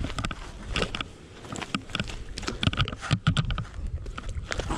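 Irregular knocks and clicks, some in quick runs, over a steady low rumble.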